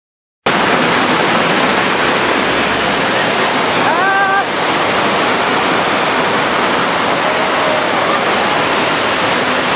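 Loud, steady rushing noise that cuts in abruptly just after the start, with a short rising call about four seconds in.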